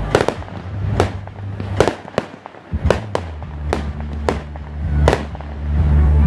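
Fireworks display: a string of sharp shell bursts going off one after another, about two a second, each bang cracking sharply.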